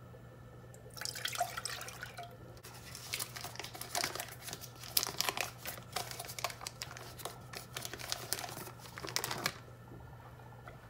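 Crinkling and tearing of a butter stick's paper wrapper being peeled open by hand: a crackly rustle full of small sharp crackles that starts about a second in and stops shortly before the end.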